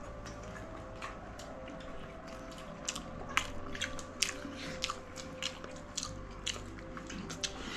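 Several people chewing and biting into peeled boiled eggs, with scattered short smacks and clicks.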